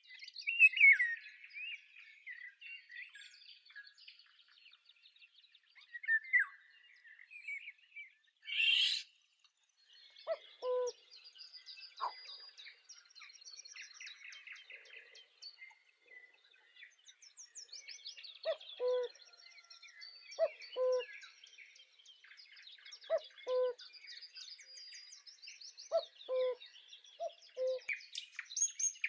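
Birdsong: small birds chirping and trilling throughout. From about a third of the way in, a low two-note hooting call comes again and again, every two or three seconds.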